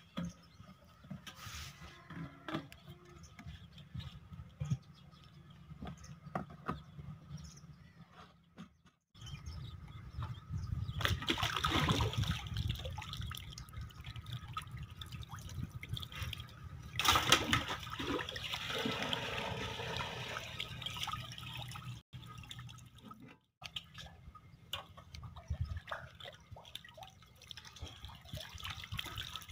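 Water poured from a metal bucket into the tube well pump's pipe, splashing and gurgling in two louder pours, to prime the pump before the diesel engine is started. Before that, a fainter trickle of diesel poured through a funnel into a plastic jerrycan.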